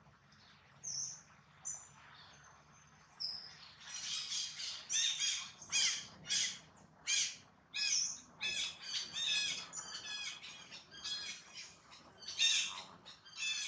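High-pitched animal calls: a few thin whistled notes at first, then from about four seconds in a fast run of calls, about two a second.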